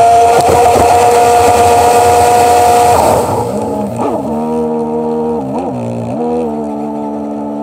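Sea-Doo personal watercraft engine running at high, steady revs with rushing water spray, then the throttle is let off about three seconds in and the engine drops to a lower steady speed, with three short blips of throttle.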